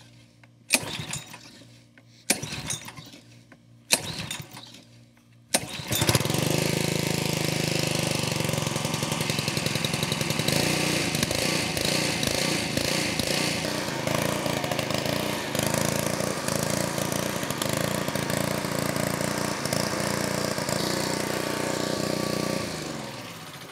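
Honda Excell 2600 pressure washer's small single-cylinder four-stroke engine being recoil pull-started on choke. Three pulls fail, it catches on the fourth and runs steadily, then is shut off and winds down near the end. The engine starts and runs fine; the pump makes no pressure, which the owner takes for a faulty unloader valve.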